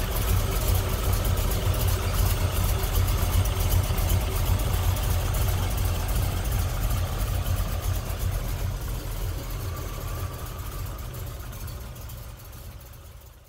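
Carbureted small-block Chevy V8 idling steadily, its hydraulic lifters freshly lashed and the valvetrain running quietly without ticking. The sound fades away near the end.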